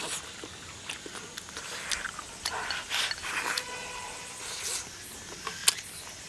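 A person chewing soft braised pork knuckle skin, with wet mouth smacks and small clicks.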